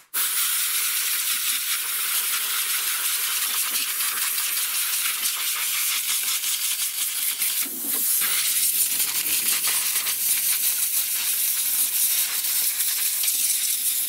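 Compressed air hissing steadily from an air blow gun aimed into a lawnmower engine, blowing out a mouse nest that jammed the governor air vane, with many small ticks and rattles mixed into the hiss.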